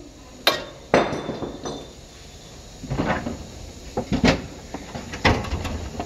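Hammer blows on the steel front hub in the steering knuckle, driving the wheel hub and bearing out: two sharp metallic strikes about half a second apart near the start. Several more metal knocks and clanks follow about three to five seconds in.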